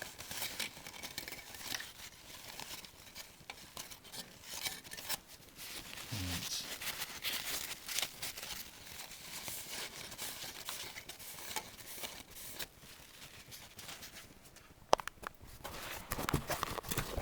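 Paper towel rustling and crinkling, with scattered small handling clicks, as thermal grease is wiped off a CPU; a single sharp click about fifteen seconds in.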